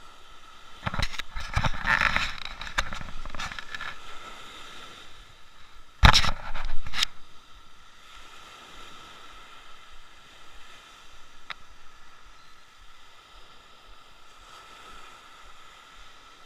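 Rough scraping and rustling close to the microphone between about one and four seconds in, then a few sharp knocks about six seconds in, the loudest sounds here, followed by a faint steady hiss.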